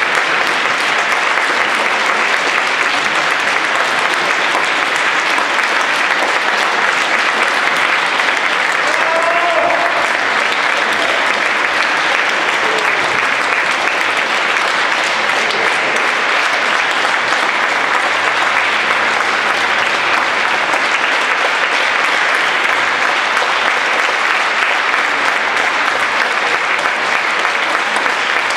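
Concert audience applauding steadily: dense, even clapping from a large crowd at the close of a symphony performance.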